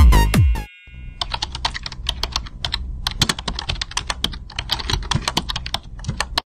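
Electronic dance music cuts off less than a second in. It is followed by rapid, irregular sharp clicks and taps over a low steady hum, which stop abruptly near the end.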